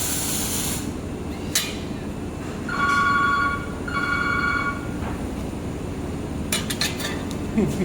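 A high hiss from the handheld laser welder cuts off about a second in, followed by a click and two multi-tone electronic beeps, each just under a second long. A few sharp clicks come near the end, over a steady low machine hum.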